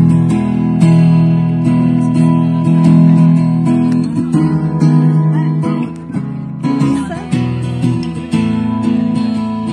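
Music with a strummed acoustic guitar, with a brief dip in level about six seconds in.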